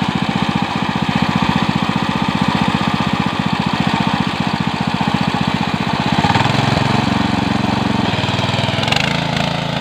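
Small engine of a walk-behind power tiller running steadily with a fast, even firing beat. About six seconds in its note changes, and it shifts again near the end.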